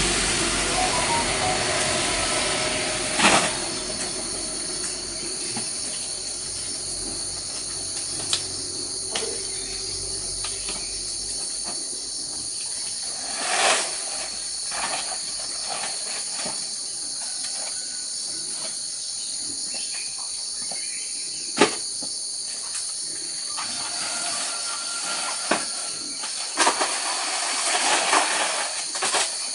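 Insects droning steadily in a high-pitched chorus, with a few sharp knocks and some handling noise over it.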